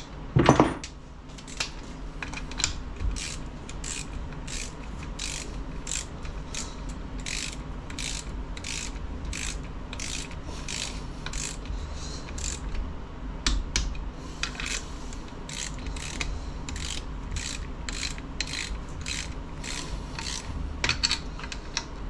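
Ratcheting torque wrench tightening bolts on a transfer case to 30 foot-pounds: a long run of evenly spaced ratchet clicks, nearly two a second, with a brief pause midway. A single loud knock comes just after the start.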